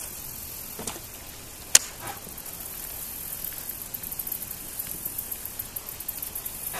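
A fishing reel being reeled in after a cast: one sharp click, then a fast, faint ticking over a steady background hiss.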